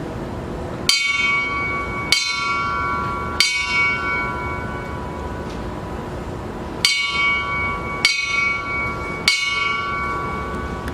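Fire-service memorial bell struck in two sets of three, about a second apart, each strike ringing on and dying away, with a pause of about three seconds between the sets. This is part of the firefighters' three-rings-three-times "last alarm" signal, which marks the end of fallen comrades' duties.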